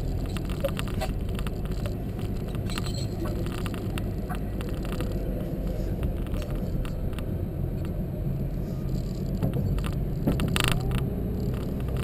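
A Porsche 718's 4.0-litre flat-six pulling away slowly, heard from inside the cabin as a steady low rumble with a few light knocks.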